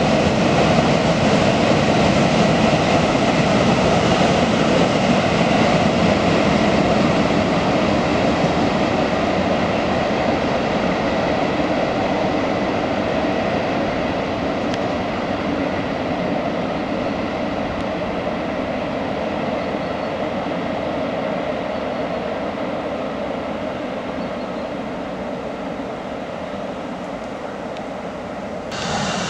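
Long freight train of open coal wagons rolling through a curve, a steady rumble and rattle of wheels on rail that slowly fades as the train draws away, until it breaks off abruptly near the end.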